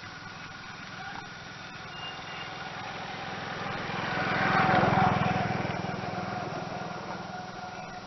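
A small motor vehicle, such as a motorcycle, passing by. Its engine grows louder to a peak about five seconds in, then fades away.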